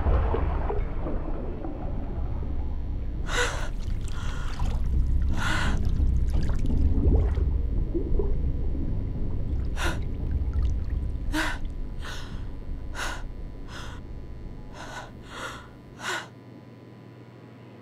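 A woman gasping for breath again and again, about a dozen sharp gasps coming quicker toward the end. Under them is a low rumble of water that dies away near the end.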